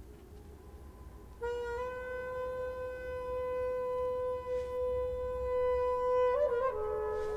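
Music score: a single wind instrument holds one long, steady note starting about a second and a half in. It shifts down to a lower note near the end.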